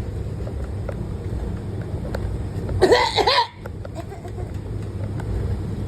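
Steady low drone of a city bus's engine and road noise, heard from inside the cabin. About three seconds in, a person lets out a brief, loud vocal sound lasting about half a second.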